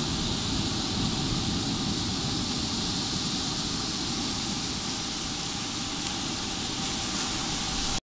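Small ocean waves washing onto a sandy beach with a steady hiss, while wind rumbles across the microphone.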